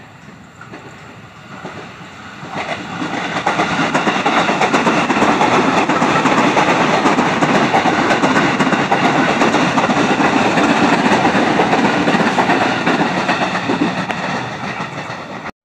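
KRL commuter electric train passing close by, its wheels running over the track. The noise builds about two seconds in, stays loud for about ten seconds, eases off, and cuts off suddenly.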